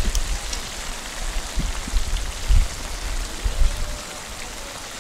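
Soya chunks in tomato sauce sizzling in a pot on a three-stone fire: a steady rain-like hiss, with a few dull low bumps.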